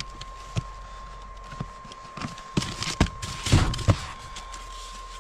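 Irregular knocks and clatter of things being handled while gathering vegetables, with a cluster of louder knocks about three to four seconds in, over a faint steady high tone.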